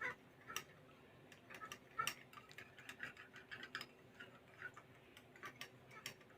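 Faint, irregular clinking of a stirrer against a glass beaker, some clinks with a short glassy ring, as ephedrine is stirred to dissolve in a little distilled water.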